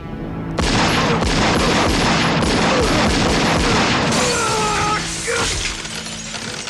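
A long burst of rapid pistol gunfire starting about half a second in and lasting about three and a half seconds, followed by window glass shattering as a body crashes out through it.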